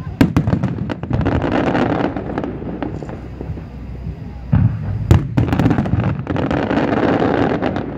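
Aerial fireworks shells bursting in two rapid volleys of sharp bangs, one just after the start and one about five seconds in, each followed by a stretch of dense crackling.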